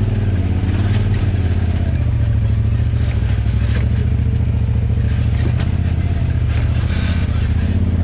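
Polaris RZR side-by-side's engine running at a steady low speed as the machine crawls down rough, washed-out ground, with scattered clunks and rattles from the chassis and suspension.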